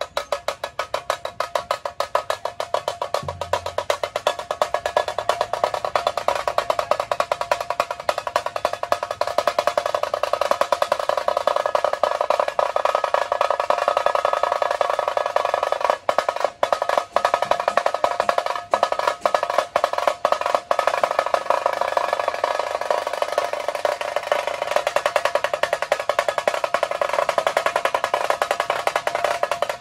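Dhol-tasha pathak drumming: tashas, the small sharp-toned kettle drums, played with sticks in fast continuous rolls. The dense rattle briefly dips a few times in the middle.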